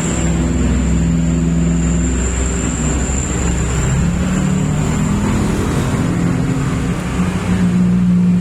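Motor vehicle engine running, its pitch shifting up and down every second or two, over a steady high-pitched whine.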